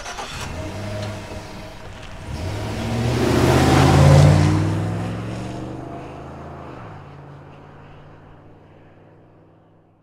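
Logo-animation sound effect: a deep whoosh over a low humming drone. It swells to its loudest about four seconds in, then fades slowly away.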